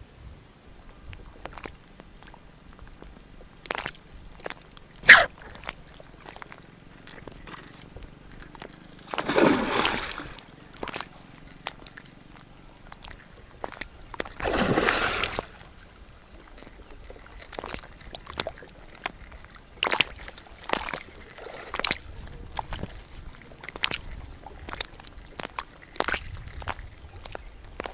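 Water splashing twice as a hooked fish thrashes at the surface while being played on a long pole rod, each splash lasting about a second and a half. Scattered sharp clicks and scuffs come between the splashes.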